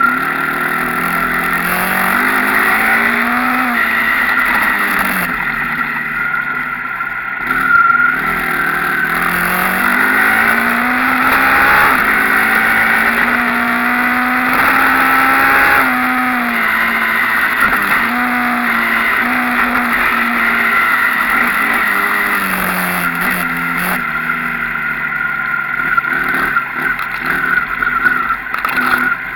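Enduro dirt bike engine being ridden hard, its pitch repeatedly rising with the throttle and dropping back at gear changes and off-throttle moments.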